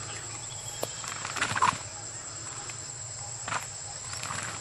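Insects buzzing in one steady high drone, with a short burst of louder noise about a second and a half in and a weaker one about three and a half seconds in.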